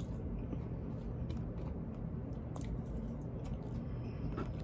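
Faint chewing of chicken nuggets, with a few soft mouth clicks scattered through, over a steady low room hum.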